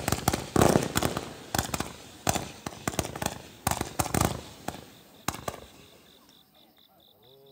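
Fireworks going off in a rapid, irregular string of bangs and crackles as a column of sparks shoots up, dying away after about five seconds.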